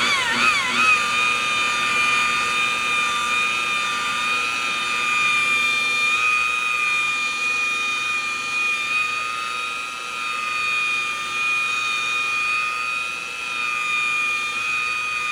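Electric car polisher with a finishing pad spinning up and running steadily, buffing unpainted plastic trim to a shine with no compound or wax. Its whine rises in pitch about a second in, then holds steady.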